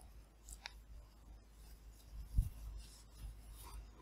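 Faint room tone with a steady low hum, a sharp small click at the start and a soft tick soon after, and one low bump about two and a half seconds in: small desk and handling noises near the microphone.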